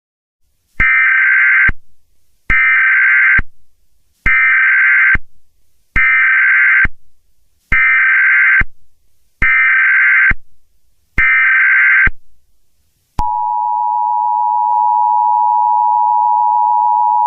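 Emergency Alert System broadcast tones: seven short, evenly spaced bursts of digital SAME header data, about 1.7 seconds apart. About 13 seconds in, the steady two-tone EAS attention signal begins, two close pitches sounding together.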